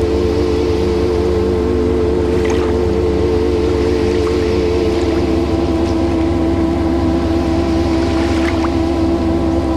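White-water river rushing steadily over rocks, under a soft ambient music drone of held notes that steps down to a lower chord about halfway through.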